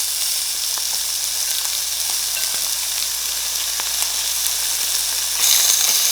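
Meat sizzling and frying on a Korean barbecue grill: a steady hissing sizzle with a few light ticks, growing louder about five and a half seconds in.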